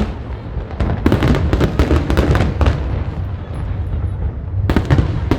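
Fireworks and firecrackers going off all around: a quick run of sharp cracks and pops about a second in, a steady low rumble of booms underneath, and another cluster of cracks near the end.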